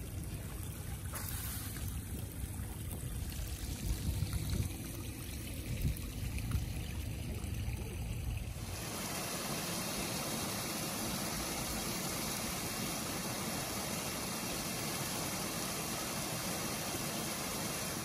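Water trickling and gurgling over stones in a small rock-lined garden stream, over a low rumble. About nine seconds in, it gives way to the steady, fuller rush of a small waterfall pouring over boulders.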